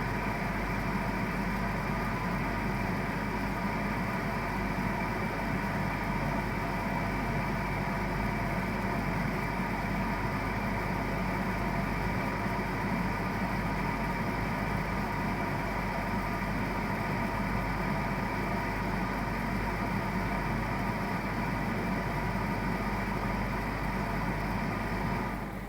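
Baxi Main 5 14F gas boiler running with a steady vibrating hum and rattle, the noise laid to its gas valve knocking. It drops away sharply near the end.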